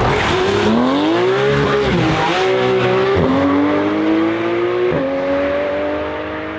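A car engine accelerating hard through the gears. The pitch climbs in each gear and drops suddenly at three upshifts, about two, three and five seconds in.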